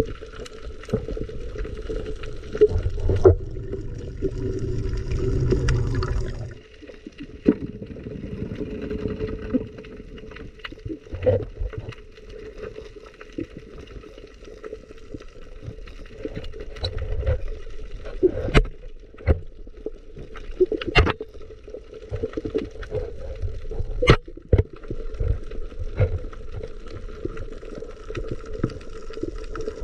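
Underwater water noise during a freedive: gurgling water with a steady hum. A heavy rumble runs for about the first six seconds and then cuts off, and a handful of sharp clicks follow through the rest.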